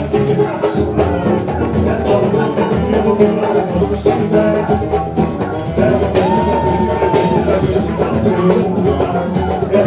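Live samba band playing with percussion and a sung melody, including a held note about six seconds in.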